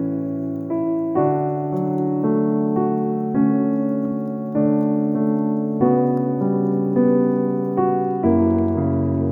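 Background piano music: sustained chords changing about every second.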